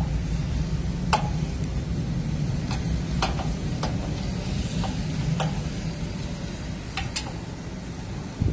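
Scattered light metallic clicks as a hand nut driver is fitted onto a sheet-metal panel screw at the base of a rooftop air-conditioning unit, over a steady low rumble that slowly fades and drops off at the very end.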